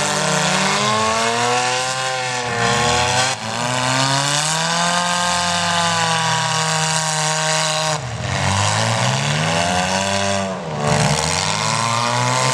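Several demolition derby car engines revving at once, their pitch repeatedly rising and falling as the cars accelerate and back off.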